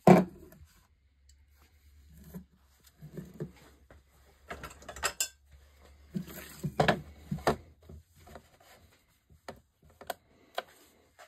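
Weighted sterling silver candlesticks knocked and set down on a workbench. A sharp knock comes first and is the loudest sound, followed by several groups of metallic clunks and clatters. Near the end come a few light clicks from the buttons of a digital scale being pressed.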